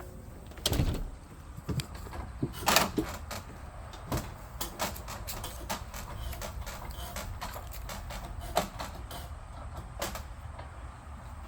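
A string of knocks and clatters, the two loudest in the first three seconds, then lighter scattered clicks, over a steady low rumble.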